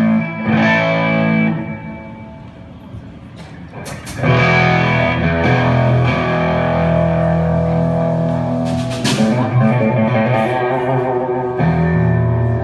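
Live rock band on stage: distorted electric guitars hold loud sustained chords over drums. The sound dies down after about a second and a half and comes back loud about four seconds in, with a cymbal-like crash about nine seconds in.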